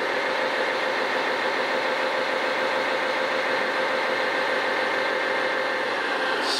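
Radio-controlled model heavy machines running with a steady, engine-like idle and a constant hum that does not change in pitch or level.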